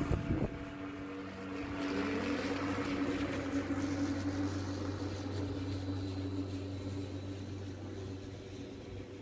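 Lawn mower running steadily, its pitch rising about two seconds in, after a short knock at the start.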